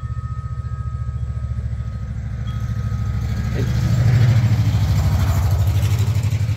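An engine idling: a low, steady rumble with a rapid, even pulse that swells louder about four seconds in, with a rush of hiss on top. Faint ringing tones from metal-tube wind chimes die away in the first couple of seconds.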